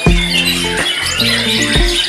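Background music with deep bass notes and steady held tones, with high, quick bird chirps sounding faintly behind it.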